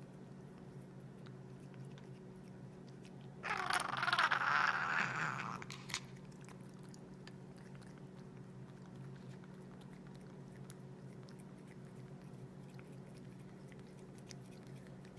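A pet chewing, with many small crunching clicks over a steady low hum. A louder sound rises over it from about three and a half to six seconds in.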